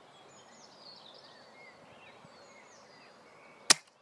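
Birds chirping faintly in the background, then near the end a single sharp crack of the Novritsch SSG24 spring-powered airsoft sniper rifle firing a shot.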